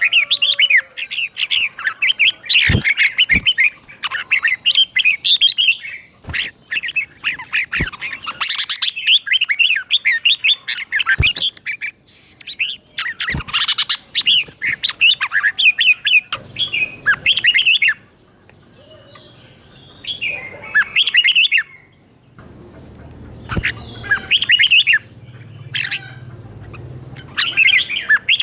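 Red-whiskered bulbul singing: a string of loud phrases of quick warbled and whistled notes with short pauses between them. A few short knocks fall between the notes.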